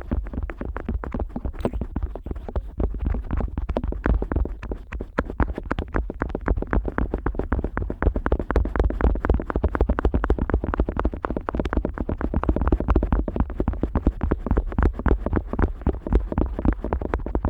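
Close, fast scratchy rubbing and tapping of an otoscope against the ear of a Neumann KU100 dummy-head microphone, with a deep rumble of handling noise underneath. It goes on without a break.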